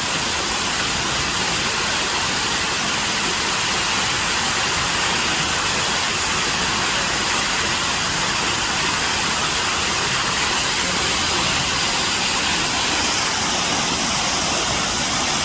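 A steady, even rushing hiss with no breaks or distinct events, strongest in the upper range.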